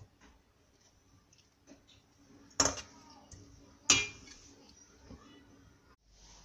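Metal spoon stirring curry in a stainless steel pan, scraping lightly and striking the pan with two sharp clinks about a second apart, in the middle.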